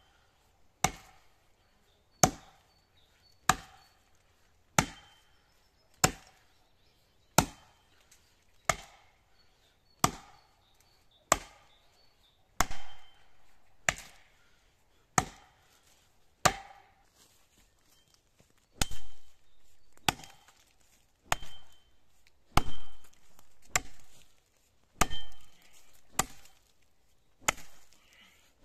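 Axe chopping into the trunk of a large pine tree, biting into the notch with sharp, regular strokes about one every second and a quarter.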